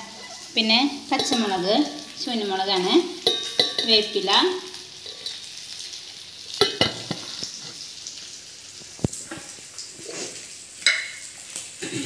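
Food sizzling in a pan as it is stirred, with a spoon scraping and knocking against the pan. There are squeaky scraping tones in the first few seconds, then a few separate clicks.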